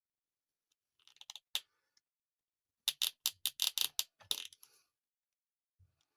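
Hard plastic toy parts clicking as a tool works a piece through a toy vehicle door: a few faint clicks about a second in, then a quick run of about eight sharper clicks near the middle.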